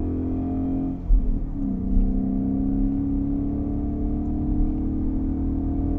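2015–2017 Ford Mustang GT's 5.0-litre V8 running through a Borla S-Type exhaust, heard from inside the cabin: a shift in pitch and level about a second in, then a steady drone.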